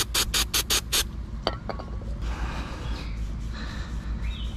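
Aerosol throttle body cleaner sprayed into a removed throttle body in a rapid series of short squirts, about five a second, stopping about a second in. A click follows, then softer rubbing as a shop towel wipes the bore.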